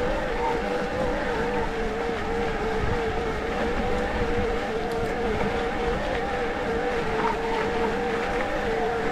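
Electric mountain bike's motor whining steadily in turbo assist mode, its pitch wavering slightly, over a low rumble of wind and tyres on the dirt trail.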